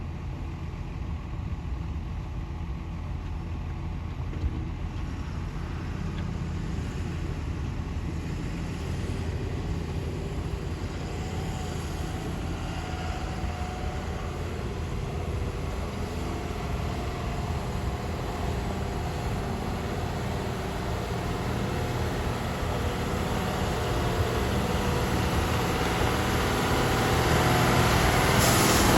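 Heavy construction machinery's diesel engine running steadily, growing louder toward the end.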